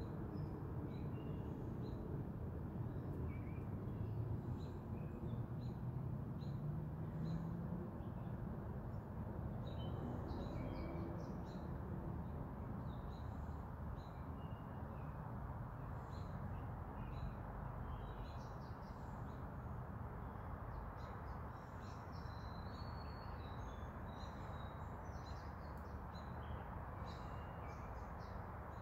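Small birds chirping and calling on and off, with a steady low background rumble of outdoor noise. A faint low tone rises for a few seconds in the first quarter.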